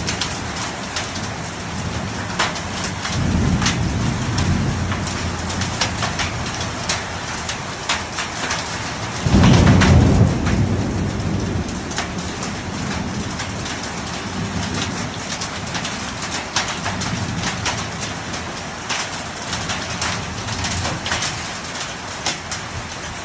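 Hailstorm: a dense, uneven stream of sharp hailstone impacts over a steady hiss of falling rain and hail, with a low rumble of thunder lasting about two seconds from about nine seconds in.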